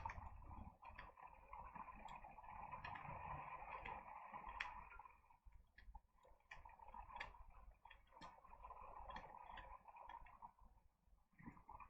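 Faint, irregular clicks of Tarot de Marseille cards being handled and looked through one by one, over a low steady hiss.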